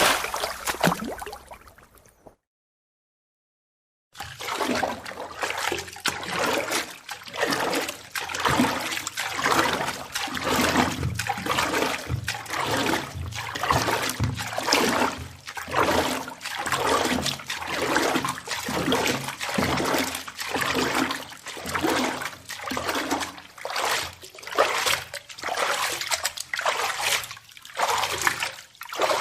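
A splash fading away, a short gap of silence, then a swimmer's strokes splashing through the water in a steady rhythm of about one stroke a second.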